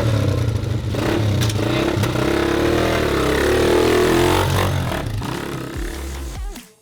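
Motorcycle engine revving, its pitch rising and falling over several seconds, then dropping away suddenly near the end.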